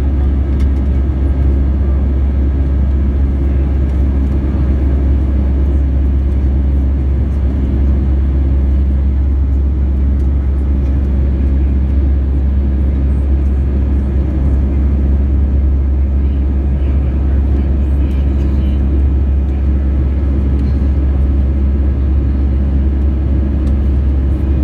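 Steady cabin noise of an Airbus A321 in flight shortly after takeoff, heard from a seat over the wing: a deep, even engine and airflow rumble.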